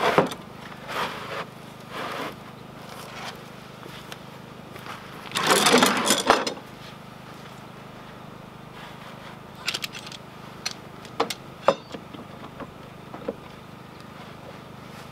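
Wooden planks knocking together as a board is set down on a panel of boards, then about a second of rough scraping as wood slides across wood, followed by a few light taps and clicks.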